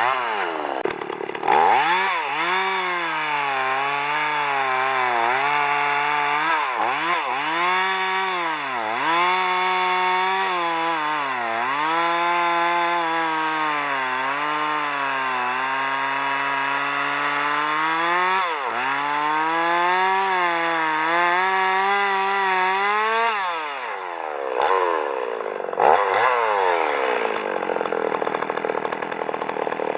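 Chainsaw running at high revs while cutting wood, its engine pitch repeatedly sagging under load and picking back up as the chain bites. Near the end the revs drop lower for a couple of seconds before climbing again.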